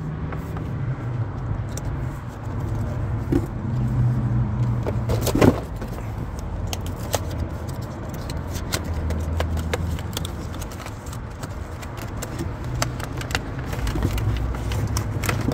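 A flashlight's packaging being handled and opened: a string of small clicks and rattles with a sharper knock about five seconds in, over a steady low rumble.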